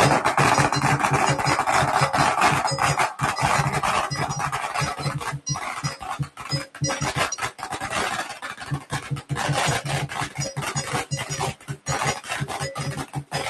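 A string of Chinese firecrackers going off in a rapid, unbroken crackle of bangs. It is loudest at the start and eases slightly later on.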